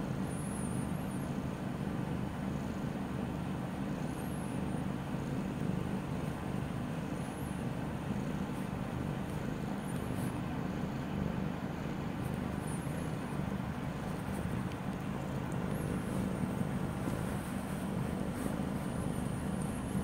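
Steady low background rumble, like distant traffic or machinery, with a short high chirp about every three seconds.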